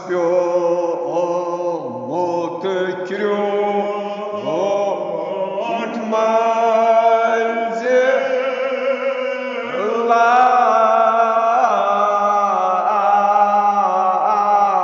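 An elderly man's voice chanting a Kashmiri marsiya, a mourning elegy, in long melodic lines that bend in pitch and hold notes.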